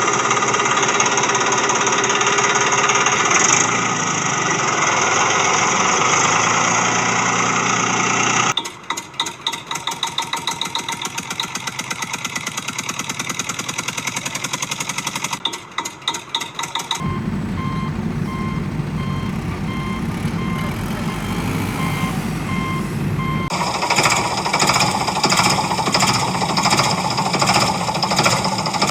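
A run of construction-machine sounds. First a steady machine noise, then a rapid even clatter from about a third of the way in. Past the middle comes a low engine rumble with evenly repeated reversing beeps, and near the end a fast repetitive hammering.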